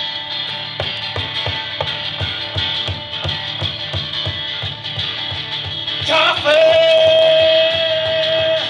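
Acoustic guitar strummed in a steady blues rhythm. About six seconds in, a voice slides up into one long held note over the guitar.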